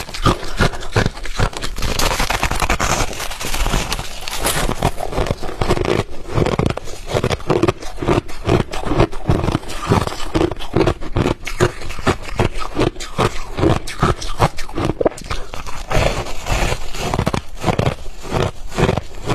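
A person chewing ice, a dense run of loud crunches several to the second.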